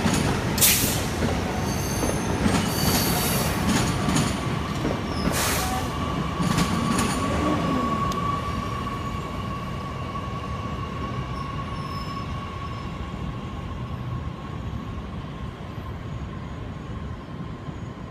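Metra Highliner electric commuter train rolling past on curving track. Its wheels squeal, with several sharp high screeches in the first seven seconds and then one steady squeal, while the running noise slowly fades as the train moves away.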